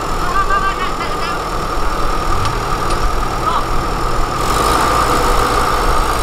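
Diesel engine of heavy earthmoving machinery running steadily. A lower steady hum joins about two and a half seconds in, and the sound grows fuller and hissier from about four seconds in.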